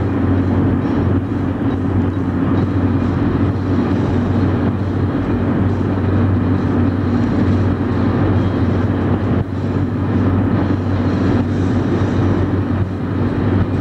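Steady car cabin noise at motorway speed, heard from inside the car: a constant low engine drone under road and wind rush.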